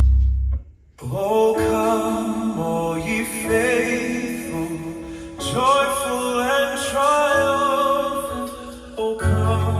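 Recorded music with singing, played through an LG LHD657 home theater system's speakers, with a brief break in the sound about half a second in.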